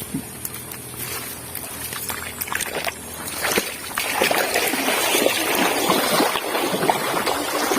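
Water splashing and trickling, irregular and busy, growing louder about three and a half seconds in.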